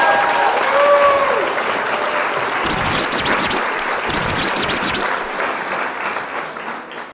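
Applause from a crowd, fading down toward the end, with a few short tones over it in the first second and a half.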